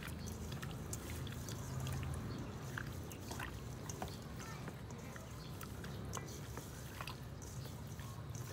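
Hands mixing seasoned raw chicken pieces in a stainless steel bowl: faint wet squishing with scattered light clicks, over a low steady background hum.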